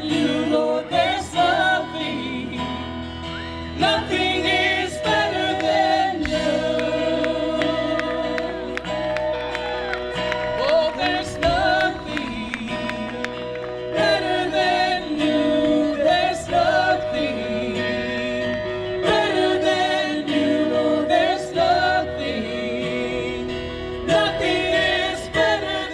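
Church worship team singing a gospel worship song, with choir voices holding long notes over instrumental backing.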